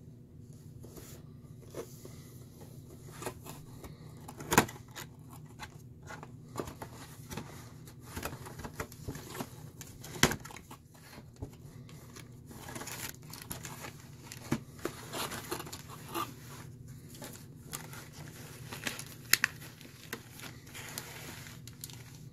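Hands handling small objects and packaging: scattered clicks and taps, the sharpest about four, ten and nineteen seconds in, with stretches of rustling, over a steady low hum.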